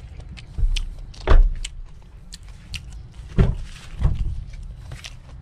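Four dull thumps among small clicks and ticks, the loudest a little over a second in. This is handling noise from moving around a parked SUV with its doors open.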